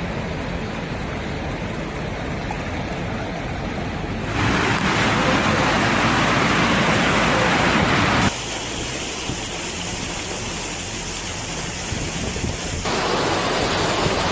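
Steady rushing noise of heavy rain and floodwater. It shifts abruptly in tone and loudness three times, about four, eight and thirteen seconds in.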